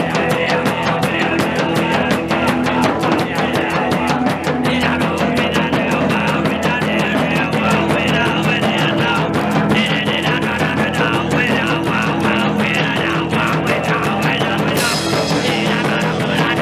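Rock music played by a band, guitar notes over a steady drum beat, with a cymbal-like hiss coming in near the end.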